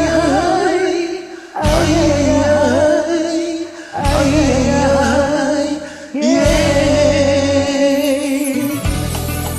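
Karaoke backing track playing the song's intro: a held, wavering melody in four phrases of about two seconds each, each phrase starting on a strong low beat over a steady bass.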